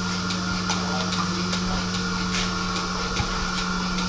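Steady electric machinery hum with faint, roughly regular clicks about once every half-second to second.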